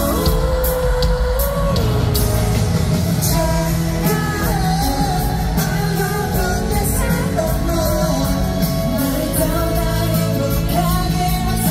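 Live K-pop song: male vocals sung over a live band with bass guitar, heard from the audience seats in a large concert hall.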